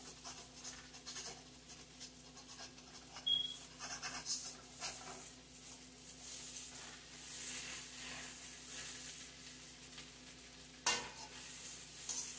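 Utensil stirring and scraping cauliflower fried rice in a wok, with a light sizzle from the frying food. Near the end comes one sharp knock of the utensil against the pan.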